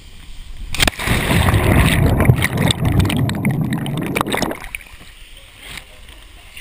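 A sudden plunge into river water, then about three and a half seconds of loud churning, rushing water right on the microphone, fading out before the end.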